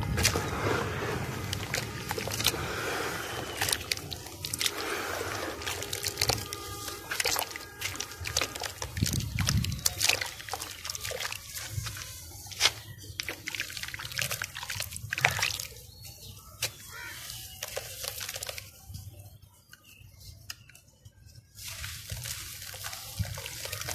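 Balls of dry dirt and sand crumbling in water: wet sloshing and dripping, broken by many sharp crackling clicks, dying down for a few seconds near the end.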